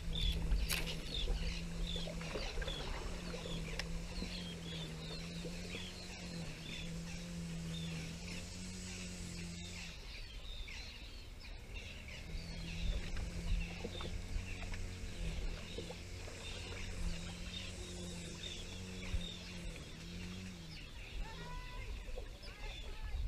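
Many small birds chirping and twittering, with wind rumbling on the microphone. A low hum that steps up and down in pitch runs underneath, breaking off about ten seconds in and again near the end.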